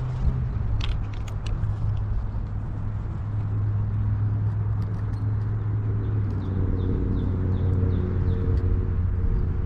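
An engine running steadily nearby: a low hum with a deep drone that grows fuller from about two-thirds of the way in, with a few light clicks near the start.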